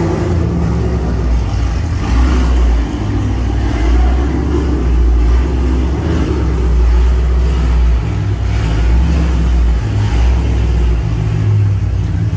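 A 2013 Camaro ZL1's supercharged 6.2-litre V8 running through a newly fitted dual X-pipe exhaust. It has a deep low note that swells and eases every second or two.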